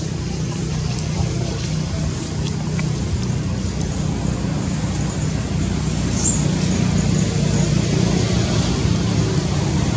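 Steady low rumble of passing motor traffic, growing a little louder about six seconds in.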